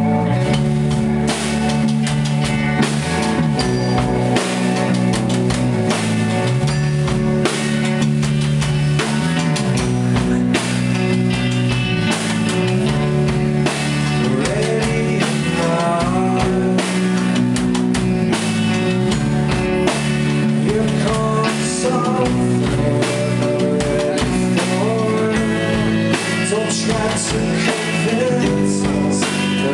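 Live rock band playing an instrumental passage: electric guitars, bass guitar and drum kit, loud and steady, with sliding guitar notes over a driving beat.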